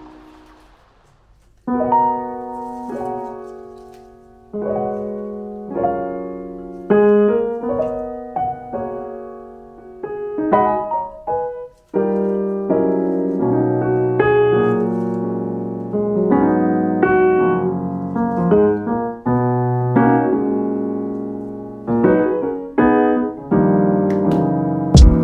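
Background piano music: a solo piano piece of struck notes and chords that swell and decay, pausing briefly about a second and a half in and again around twelve seconds, with a drum beat coming in near the end.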